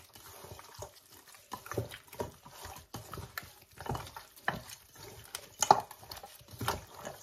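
Gloved hands mixing chopped raw pork back ribs in a wet marinade in a stainless steel bowl: irregular wet squelches and slaps as the meat pieces are turned over.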